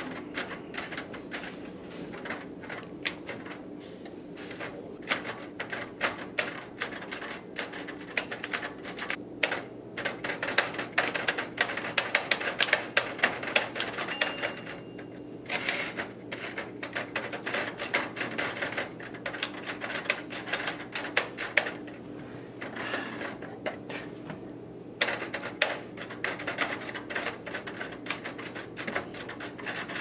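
Manual portable typewriter being typed on with bare feet: keys and typebars clacking in quick, irregular runs, with a couple of short pauses.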